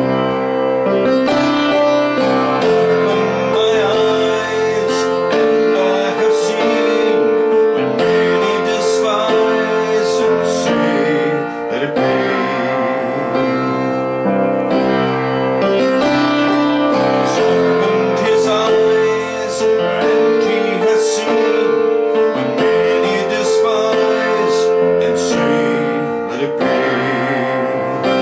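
Musical theatre song with piano and keyboard accompaniment and singing voices, playing continuously.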